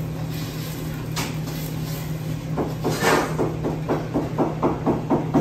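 Metal spoon stirring a stainless steel pot of soup on a gas range. From about halfway in, it knocks and scrapes against the pot's sides in a quick, even rhythm of about four strokes a second.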